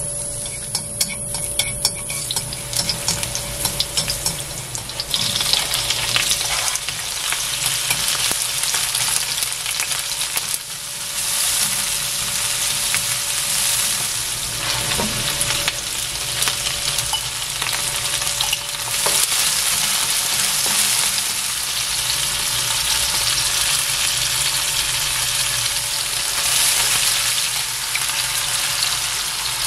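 Food frying in oil in a nonstick wok: garlic cloves sizzling in olive oil, with the sizzle growing louder about five seconds in as sliced onions and peppers go in. A wooden spatula stirs and taps through the vegetables over a steady sizzle.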